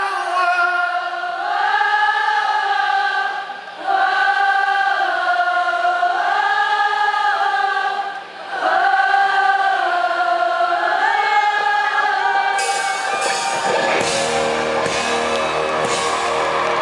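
A crowd singing a sustained melody together at a live rock concert, with almost no instruments under it. The band comes back in with bass and drums near the end.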